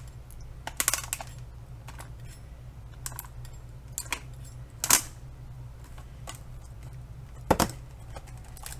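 Handheld gear-type manual can opener cranked around the edge of a plastic clamshell blister pack, cutting it open. It gives scattered metallic clicks and a quick rattle about a second in, a sharp clack around five seconds and a loud double clack near the end.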